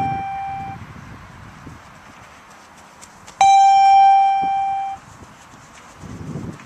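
Bleep test (multi-stage fitness test) beeps. One steady electronic beep ends just under a second in, and a second long beep of the same pitch sounds from about three and a half seconds in, lasting about a second and a half. Each beep marks the time by which the runner must reach the next 20-metre line.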